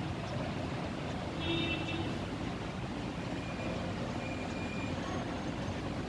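Steady low background rumble, with a brief faint tone about one and a half seconds in and thin faint high tones later on.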